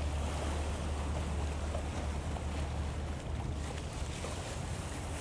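Small sea waves washing and breaking against a rock breakwater, under a steady low rumble of wind on the microphone.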